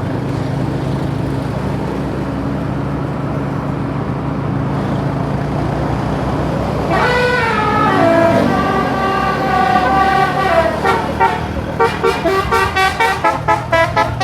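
A bus's telolet multi-tone musical horn, heard over the steady drone of a vehicle engine and road noise. About seven seconds in, the horn sounds several notes at once that slide down in pitch. From about twelve seconds in it plays rapid, evenly pulsed notes, about four a second.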